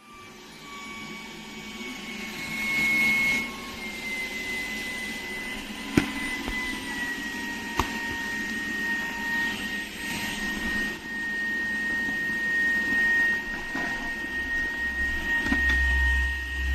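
Shark Detect Clean & Empty cordless stick vacuum running: a steady high motor whine over rushing air, the whine settling slightly lower about a third of the way in. Two sharp clicks come in the middle.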